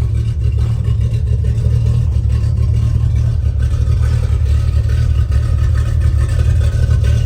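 1971 Dodge Charger's engine running steadily and deep as the car is driven on a test drive after rear-end repair.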